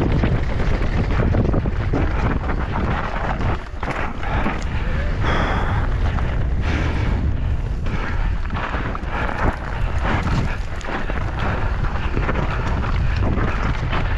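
Wind rushing over the microphone as a mountain bike descends a rough enduro trail at speed, with the bike rattling and knocking over the ground throughout.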